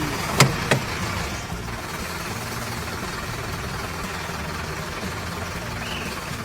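A vehicle engine running steadily, with two sharp clanks about half a second in. Short bird chirps come in near the end.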